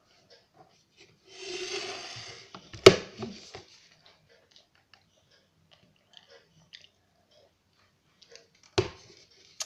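Someone chewing a chocolate candy, with small wet mouth clicks. A rustle comes about a second and a half in, and two sharp knocks, one about three seconds in and one near the end.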